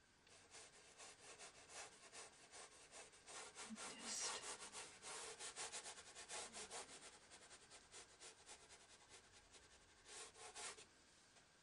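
Flat paintbrush brushed across watercolour paper in many quick sideways strokes, a faint scratchy rubbing, busiest around the middle, with a last short flurry near the end.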